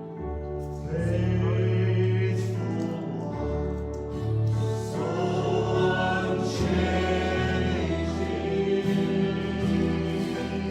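Church worship music: a group of voices singing a slow worship song over held instrumental chords and bass notes.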